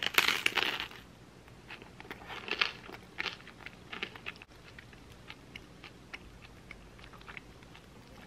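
Crisp crust of a toasted chocolate-filled bagel crackling and crunching as it is broken apart by hand. There is a loud burst of crackles at the start, another about two and a half seconds in, then scattered small crackles.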